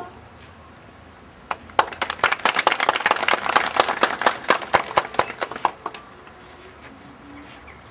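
Small audience applauding with scattered hand claps. The clapping starts about a second and a half in and dies away after about four seconds.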